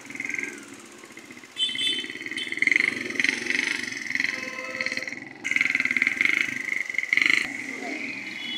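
Small motorcycles riding through a flooded street, their engines running and tyres splashing through the water; the sound grows louder about one and a half seconds in as they pass close by.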